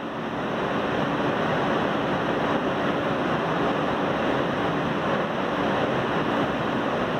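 Steady rumble and rush of a New York City subway car running, heard from inside the car. It grows louder over the first second, then holds even.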